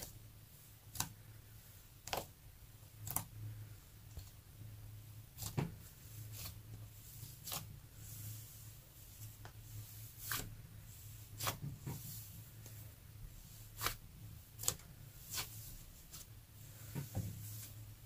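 Fluffy slime being kneaded, folded and stretched by hand, giving soft sticky pops and crackles at an uneven pace, about one a second, over a faint low hum.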